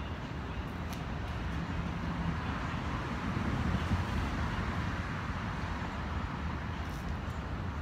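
Steady road traffic noise, with a vehicle passing that is loudest about three to four seconds in.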